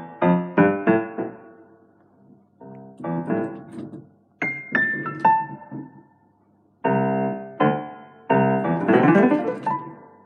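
Yamaha SY77 digital synthesizer played with a piano-like patch, in short bursts of struck notes and chords that each fade away, with pauses between the bursts. A few high single notes ring on near the middle, then come held chords and a dense flurry of notes near the end.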